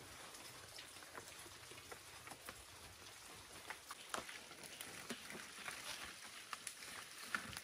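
Large fresh leaves rustling and crackling as they are handled and laid onto a leaf-thatched shelter roof: faint scattered ticks, with a couple of sharper crackles about four seconds in and near the end.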